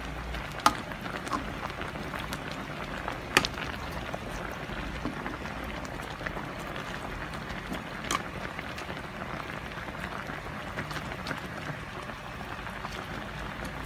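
A pot of sinigang sa miso broth bubbling steadily at the boil under a heap of freshly added mustard greens, with a few sharp clicks of a spoon against the pot.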